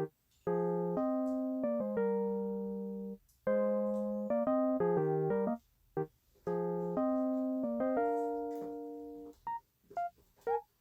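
Background music: a light electric piano tune playing chords in short phrases, each note fading out, with brief silent gaps between phrases.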